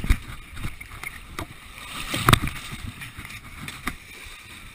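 Muddy water sloshing and splashing as racers wade through a mud pit, in uneven strokes, with the loudest splash about two seconds in.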